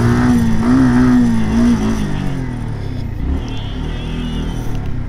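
Sport motorcycle engine running as the bike rolls and slows in traffic, a steady drone that eases off and gets somewhat quieter about two seconds in.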